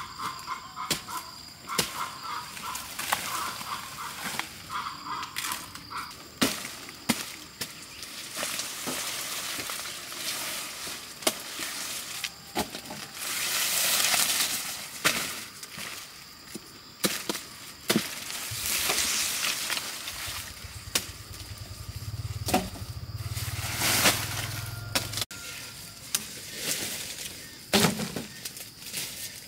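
Machete cutting purple sugar cane stalks: irregular sharp cracks and knocks, with the dry cane leaves rustling and swishing as stalks are cut and moved. A low hum runs for a few seconds past the middle.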